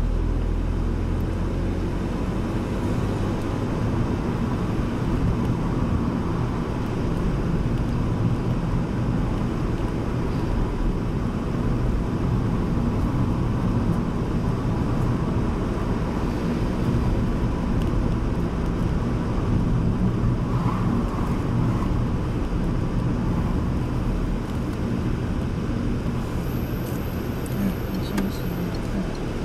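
Steady car engine and tyre noise heard from inside the cabin while driving.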